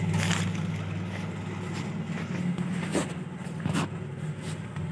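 Steady low hum of shop background noise, with a few brief knocks and footsteps as someone walks along the aisle.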